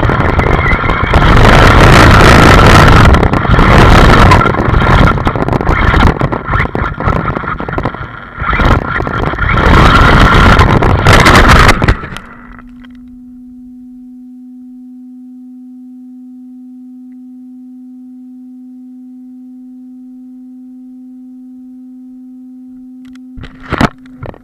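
Arrma Talion RC car driving hard over rough ground: loud rattling and rushing noise with a steady motor whine. About halfway through the racket cuts off suddenly, leaving only a steady low hum, and loud rattling bursts return near the end.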